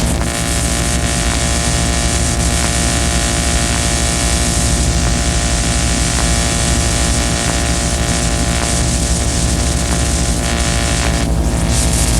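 Dense experimental noise music: a loud, steady wall of hiss over a layered whirring drone of many held tones and a pulsing low hum, shifting only briefly near the end.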